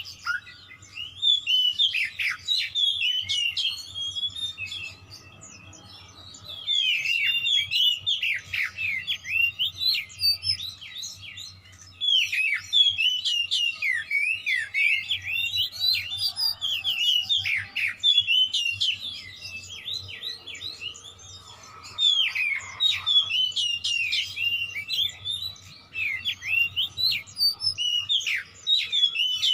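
Oriental magpie-robin singing in bouts of fast, varied, whistled and sweeping notes, with short pauses of a second or more between the four main bursts.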